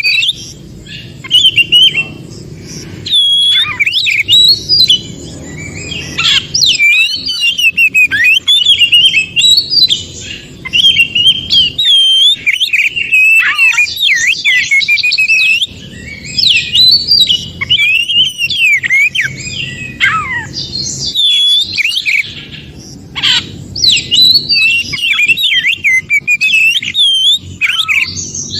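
Oriental magpie-robin singing a long, varied song of rapid whistles, slurred rising and falling notes and trills, nearly continuous with only brief pauses.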